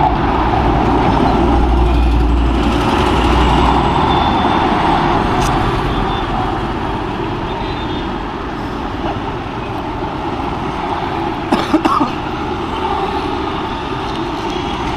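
Road traffic passing steadily, with a deeper rumble of a passing vehicle between about two and four seconds in. A few sharp clicks come about twelve seconds in.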